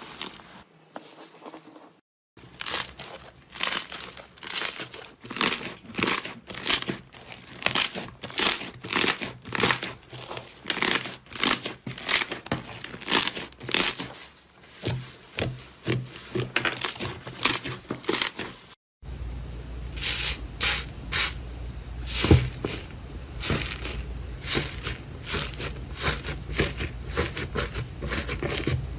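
Slime being squeezed and pressed by hand, crackling and popping in repeated squishes of about two a second. After a brief cut, a second stretch of denser crackling.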